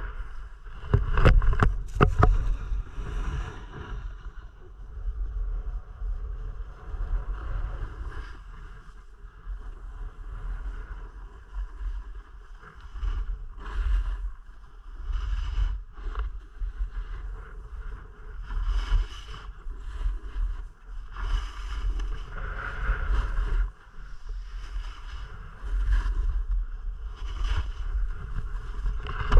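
Skis scraping and carving on packed snow in a run of turns, a swish every second or two, with wind rumbling on the camera's microphone. A few sharp clicks about a second in.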